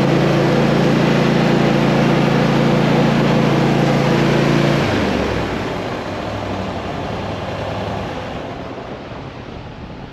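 Tractor engine running steadily, then dropping off about halfway through, its sound breaking up and fading away as it slows.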